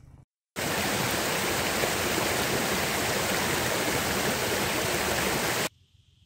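Partly frozen stream of water falling and rushing over rocks and ice, a steady loud rush that starts about half a second in and cuts off abruptly near the end.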